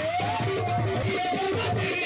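Qawwali music: a held melodic line over short repeated notes and a steady low drum beat.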